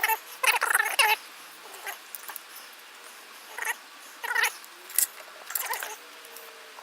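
An animal calling: short, high-pitched cries, a quick run of them at first, then single calls about every half second to a second.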